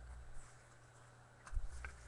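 Trading cards being handled and shuffled by hand: a few faint ticks and a soft knock about a second and a half in.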